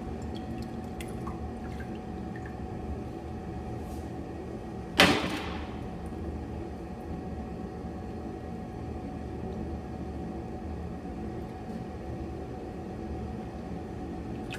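Soft handling sounds of homemade borax-and-glue slime being kneaded by hand, with a few small clicks over a steady faint hum, and one sharp loud knock about five seconds in.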